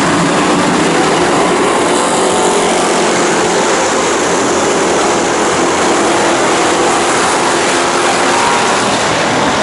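A field of dirt-track stock cars racing, many engines blending into one loud, steady engine noise.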